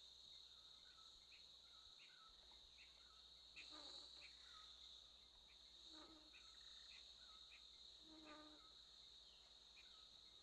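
Jungle ambience: a steady high-pitched insect drone, with short descending chirping calls repeating about twice a second and a few louder, lower calls about four, six and eight seconds in.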